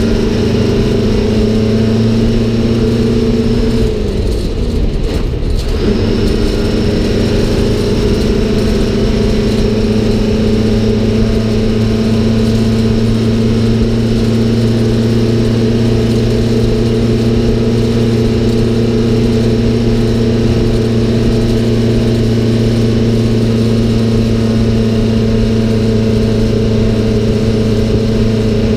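1971 American LaFrance Aero Chief fire truck's engine running steadily under way, heard from the cab. About four seconds in, the engine note drops away for about two seconds, then picks up again.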